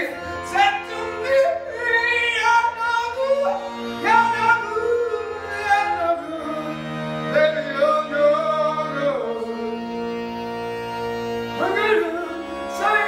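Accordion playing slow held chords that change every few seconds, with a voice singing a slow melody over them.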